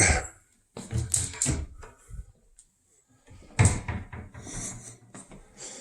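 Kitchen cabinets being opened and shut: a few wooden knocks and rattles about a second in, then a louder bang about three and a half seconds in, with quieter handling in between.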